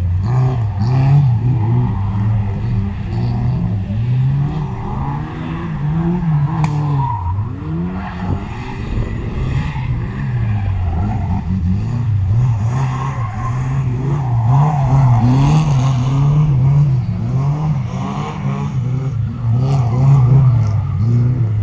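Competition car's engine being driven hard through a cone slalom, revving up and dropping back again and again, every second or two, as it accelerates and brakes between the gates.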